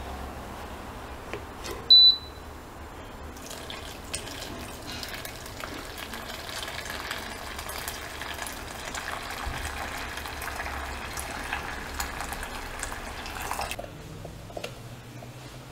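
A short, sharp high beep about two seconds in, then hot water pouring in a steady stream from a gooseneck electric kettle into a silicone storage bag for about ten seconds, stopping suddenly near the end.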